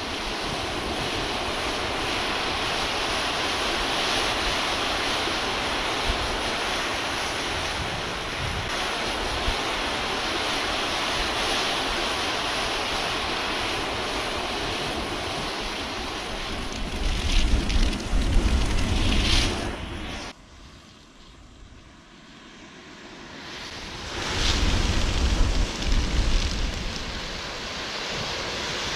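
A big heap of burning matches, the flames giving a steady rushing noise, with wind buffeting the microphone in gusts. About twenty seconds in the sound drops away sharply, then builds back up a few seconds later.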